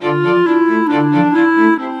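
Music with bowed strings, violin and cello, playing a melody. It is loud at first and drops back softer near the end.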